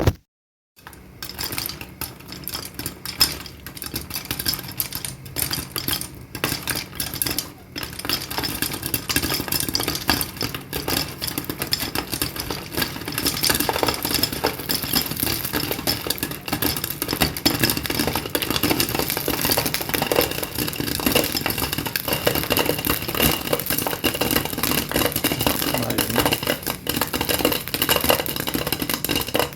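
Waterfall rushing with a steady noise that begins abruptly about a second in, with a few sharp clicks over the first several seconds.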